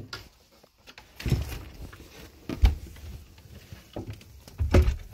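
A door pulled open by hand, then a few dull thumps and knocks with light rustling in a small room.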